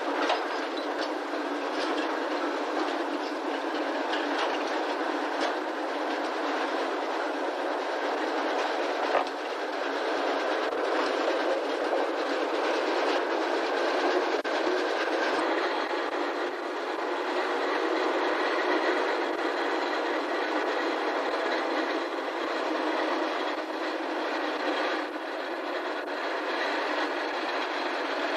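A narrow-gauge diesel locomotive hauling a train of steel sugar-cane wagons past, the wagon wheels clattering over the rail joints in a run of quick clicks.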